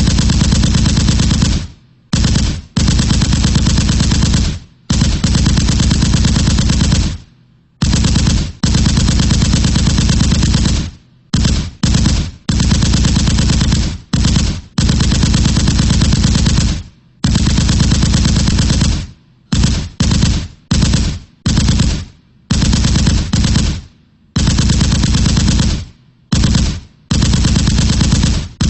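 Machine-gun sound effect: automatic fire in repeated bursts, some short and some running two to three seconds, with brief pauses between them.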